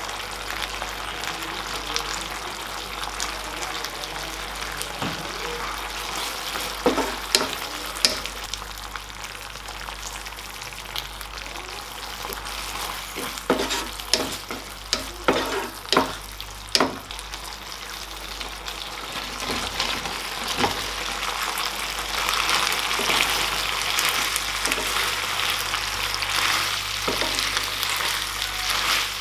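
Chilli chicken sauce with onions and bell peppers sizzling in a nonstick frying pan while a wooden spatula stirs it, with a few sharp taps of the spatula on the pan a few seconds in and a cluster of them around the middle. The sizzle grows louder in the last third as fried chicken pieces are tossed in the sauce.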